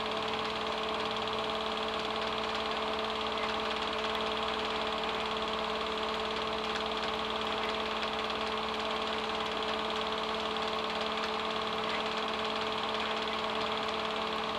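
Film projector running: a steady mechanical whir with a constant hum, even and unchanging throughout.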